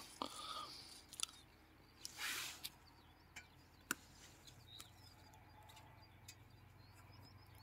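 Faint handling sounds from a metal pocket tread depth gauge: a few small sharp clicks and brief soft rustles, with quiet in between.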